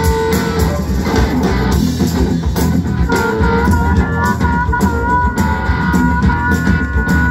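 Live rock band playing loud, with electric guitar to the fore over bass and drums. A high note is held from about three seconds in.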